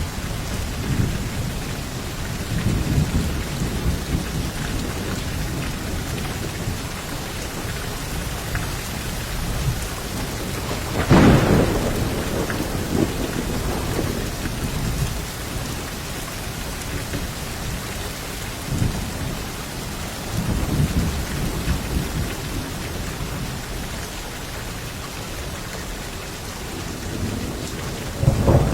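Steady heavy rain with rolling thunder rumbling low throughout. A sharp, loud thunderclap comes a little over a third of the way in and rumbles on for a few seconds, and another clap starts right at the end.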